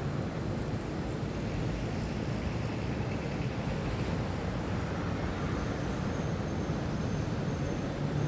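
City ambience: a steady wash of distant traffic, with faint high thin tones in the second half.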